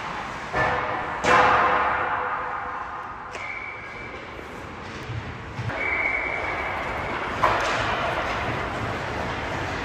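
Sharp cracks of hockey pucks and sticks echoing around an ice arena, three in all, with a whistle blown twice in between: first short, then longer.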